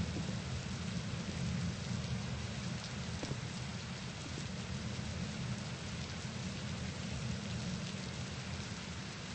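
Steady rushing noise with a low rumble underneath and a few faint scattered ticks.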